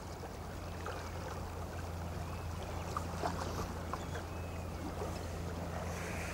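Steady rush of river water, with a constant low hum underneath and a few faint ticks.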